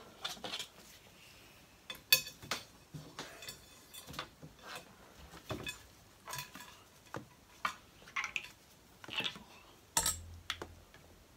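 Irregular metal clinks, taps and short scrapes as over-under shotgun barrels and a cleaning cable are handled while a patch is pulled through the bores. The sharpest click comes about two seconds in, another near the end.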